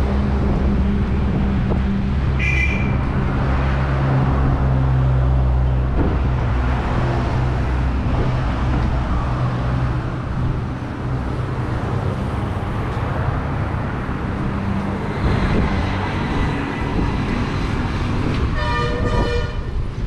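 Roadside traffic: a heavy vehicle's engine running close by for the first half, then the steady noise of passing vehicles. A short horn toot sounds a couple of seconds in and another near the end.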